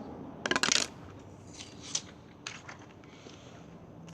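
Broken pieces of a smashed LG Volt phone being handled, clicking and rattling: a quick cluster of sharp clicks about half a second in, then a few lighter clicks.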